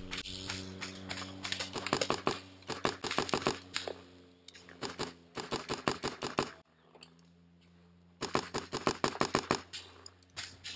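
Paintball marker firing in quick bursts of sharp pops, three strings of shots with a low steady hum under them; the sound drops out for about a second near the middle.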